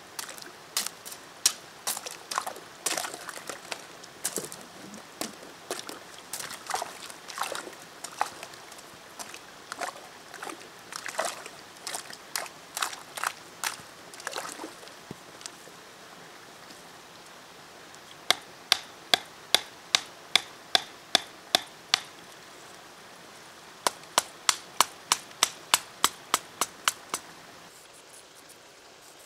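A wooden pole jabbing into and breaking thin shelf ice at the edge of a river, with irregular cracks and knocks and water sloshing and trickling. Later come two runs of quick, even clicks, about three a second.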